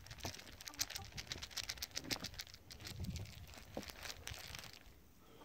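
Chicken scratch grain shaken in a plastic tub, a quick run of dry rattling clicks, to call the hens. The rattling dies away near the end.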